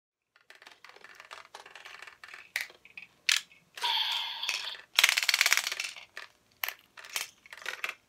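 Hard plastic clicks, clacks and rattling as a DX Evol-Driver toy belt and an Evol Bottle are handled, with a short steady tone about four seconds in.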